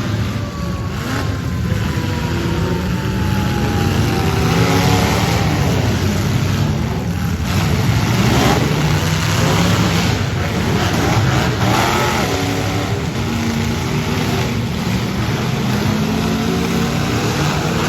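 Several demolition derby cars' engines running and revving together, their pitches rising and falling as the cars accelerate and back off.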